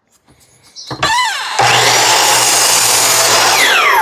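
Electric saw spinning up with a rising whine, then cutting through a softwood board about halfway in, and winding down with a falling whine near the end.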